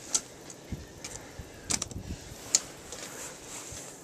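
Scattered sharp clicks, knocks and scrapes of climbers scrambling over rock — boots, hands and gear knocking against the stone — over a faint steady hiss.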